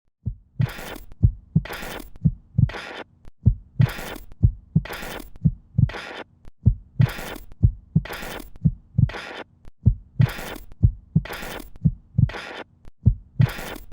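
A steady rhythmic pulse: a low thump followed by a short hissing whoosh, repeating about three times every two seconds, over a faint steady hum.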